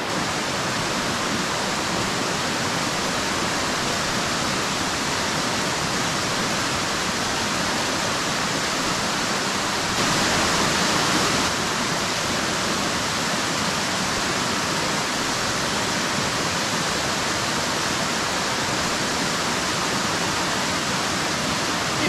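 Waterfall spilling down rock ledges close by, a steady even rush of falling water, slightly louder for a moment about halfway through.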